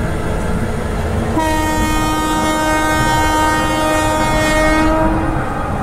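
Diesel locomotive's air horn blowing once, a held multi-tone blast about four seconds long that starts about a second and a half in, over the steady rumble of the slowly moving train.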